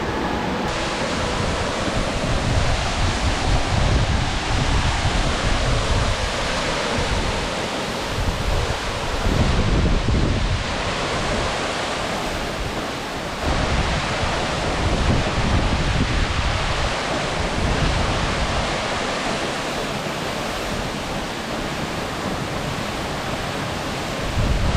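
Steady rushing roar of a tall plunge waterfall, about 60 m high, with gusts of wind buffeting the microphone now and then.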